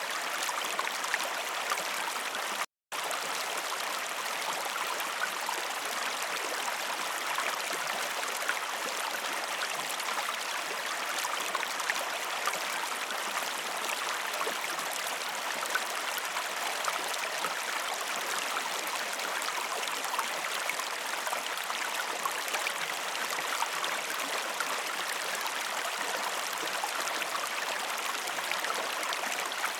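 Waterfall water rushing and splashing in a steady, unbroken wash. It cuts out to silence for a split second a little under three seconds in.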